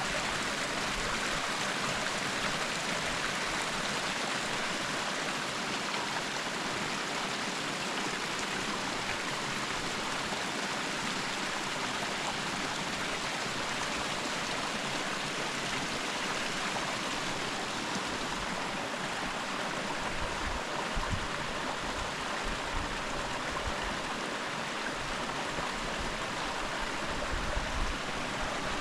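Mountain stream rushing over rocks, a steady even water noise, with a few low bumps on the microphone about two-thirds of the way through.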